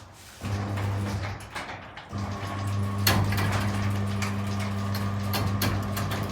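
Guardian roller door opener motor running with a steady hum as it drives the door, with light clicks and rattles; the hum drops away just after the start and comes back stronger about two seconds in.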